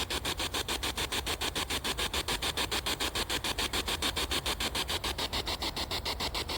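Spirit box sweeping through radio stations, a rapid, even chopping of static at about eight pulses a second.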